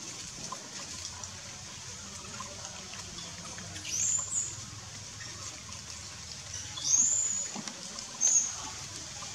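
Three short, high animal calls, each rising in pitch, about four, seven and eight seconds in, over a steady high background hiss. The second call is the longest and loudest.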